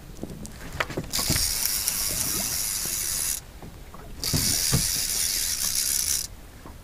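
A multiplier fishing reel being cranked in two spells of a steady gear whir, each about two seconds long, with a short pause between them, while a hooked fish is brought up on a bent rod.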